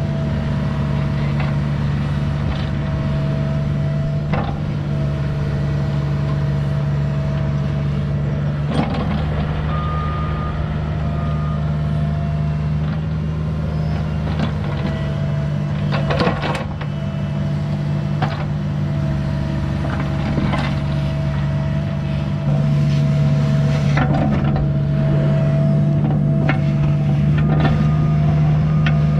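Mini excavator's diesel engine running steadily under work, with a constant hydraulic whine and frequent sharp metal clanks. Short high beeps from a travel alarm come twice, and the engine gets louder about three quarters of the way through.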